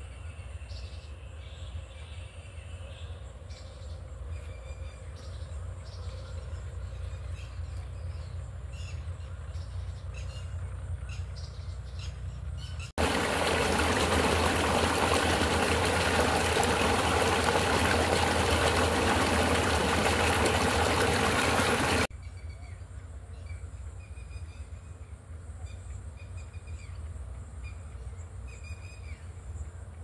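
Field ambience with scattered bird chirps over a low hum. About 13 seconds in, a loud, steady rush of water pouring from an irrigation pipe into a concrete tank starts suddenly and stops just as suddenly some nine seconds later.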